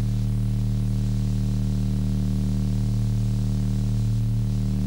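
A loud, steady low hum with a buzzing edge, unchanging throughout.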